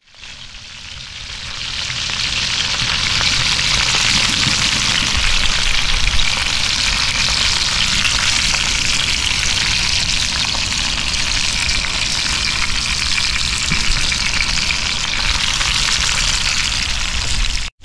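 Pieces of red snapper shallow-frying in hot oil in a skillet: a dense, steady sizzle that swells over the first couple of seconds and then holds.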